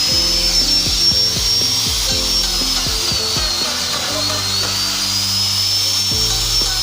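Background music over the high whine of an electric power tool cutting wood; the whine drifts slowly up and down in pitch as the load changes.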